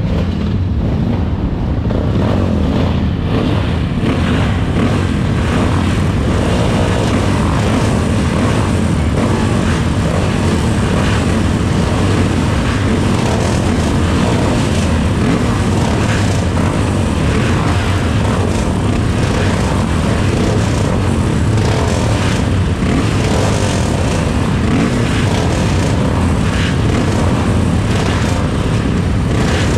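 Many MZ two-stroke single-cylinder racing motorcycles running together, a loud, dense, unbroken drone of engines.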